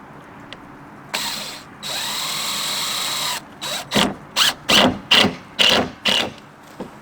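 Power drill driving a screw into the coop lid: a brief run, then a steady whining run of about a second and a half, then six quick squeezes of the trigger as the screw is seated.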